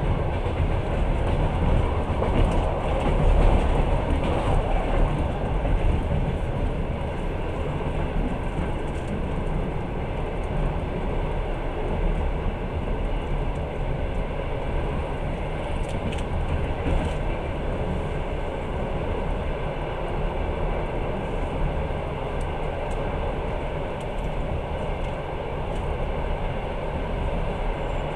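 Passenger train running at speed, heard from inside the carriage: a steady rumble of the wheels on the rails, a little louder about three to five seconds in.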